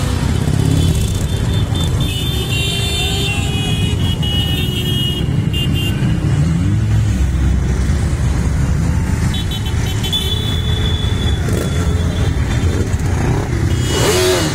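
A procession of many motorcycles, cruisers and touring bikes, riding past in a steady column, their engines making a continuous low rumble. A high steady tone comes and goes twice over it.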